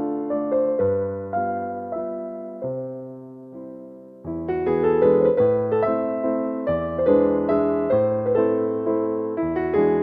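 Slow instrumental piano music: notes and chords that strike and fade away. It thins to a few quiet held notes for a couple of seconds, then fuller playing resumes about four seconds in.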